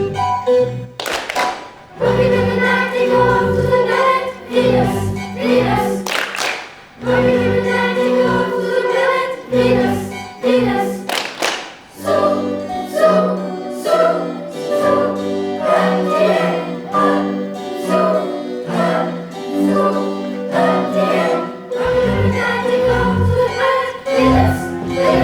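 Band music with a group of voices singing together over stepping bass notes and occasional cymbal-like strokes.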